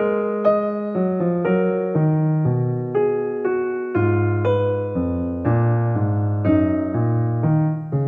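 Soft, slow piano music, with notes and chords changing about twice a second.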